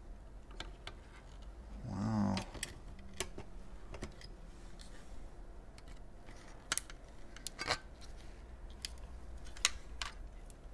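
Scattered light clicks and taps of plastic parts and circuit boards being handled with gloved hands, with one brief louder sound about two seconds in.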